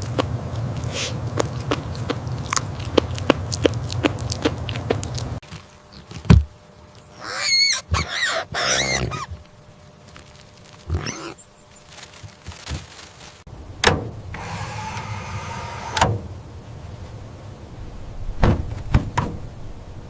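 Rapid clicking over a low hum that stops suddenly about five seconds in. Then come a few short wavering animal calls, around the eight- and fifteen-second marks, with scattered knocks between them.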